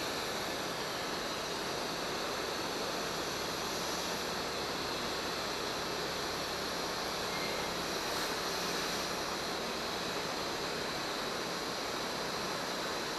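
Electric air blower running steadily, inflating the tubes of an inflatable tent: an even rushing of air.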